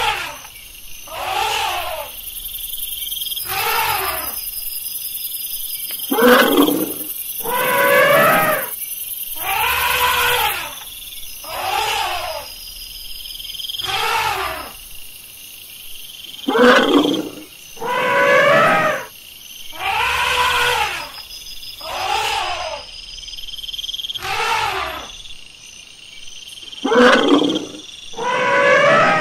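Elephants calling: a long series of short roaring trumpet calls, about one every two seconds, each rising and then falling in pitch.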